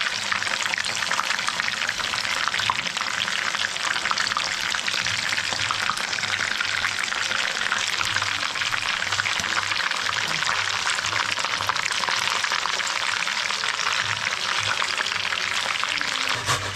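Food frying in hot oil in a pan: a steady, dense sizzle and crackle.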